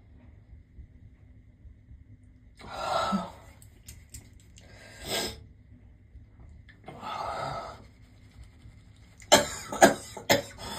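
A woman in a sneezy, coughing fit: three breathy bursts a couple of seconds apart, then a rapid run of sharp coughs in the last couple of seconds.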